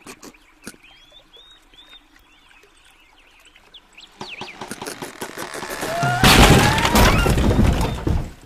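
Cartoon sound effects: faint bird-like chirps, then a rushing noise that builds from about four seconds in to a loud crash-like burst with a rising whistle through it, cutting off abruptly near the end.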